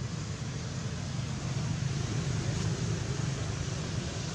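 Steady outdoor background noise: a low rumble with an even hiss, with no distinct animal calls.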